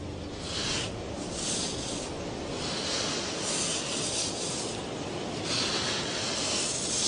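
Sand being scraped and pushed in repeated hissing, rasping sweeps, about five or six in all, as a female Nile crocodile covers her freshly laid eggs in the nest.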